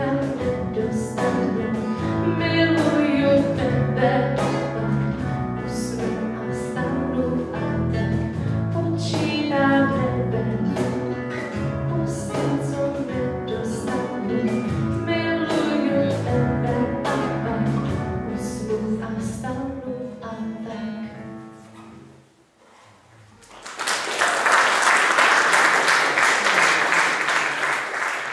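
A female singer with a small band of bass guitar, guitars and keyboard finishes a song, the music fading out about 22 seconds in. After a brief pause the audience applauds for several seconds.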